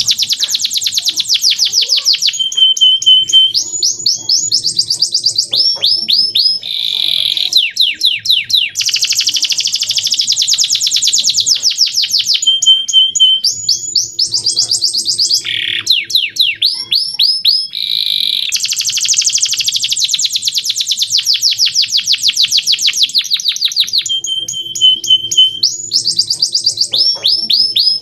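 Male domestic canary singing a loud, clear song of fast trills, rolls and short held notes. The same song passage repeats about every nine and a half seconds, as in a looped training recording for teaching young canaries to sing.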